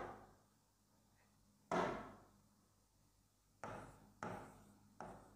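A stylus knocking against the glass of an interactive touchscreen board as letters are written on it: short separate knocks, the last three closer together.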